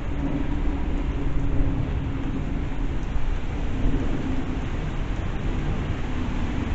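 Steady rain with a low, continuous rumble underneath.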